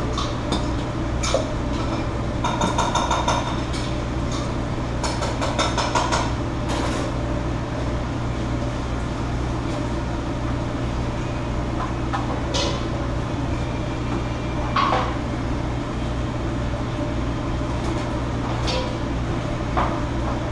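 Clattering of pots, pans and metal utensils over the steady hum of a commercial kitchen's ventilation. There are runs of rapid clinking a couple of seconds in and again around five to six seconds in, then scattered single knocks.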